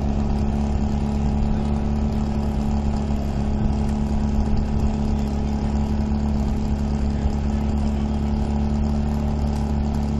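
Portable fire pump engine running steadily at high revs, one even, unchanging note.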